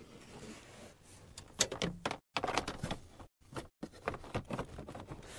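Battery-box cover being fitted back over the cab floor's battery box, on top of a layer of sound-deadening mat: a series of light knocks and clicks as the lid is handled and seated.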